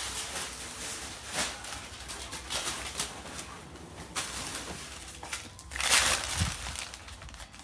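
Food package crinkling and tearing as a German shepherd rips it open, in irregular bursts, the loudest about six seconds in.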